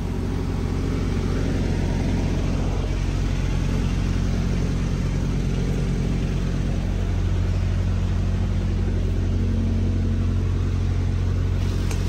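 A diesel engine idling steadily: a low, even drone that grows a little louder partway through.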